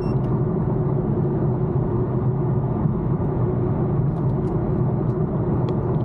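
Steady in-cabin noise of an Infiniti M37S cruising at highway speed: a constant low engine and tyre drone from inside the car.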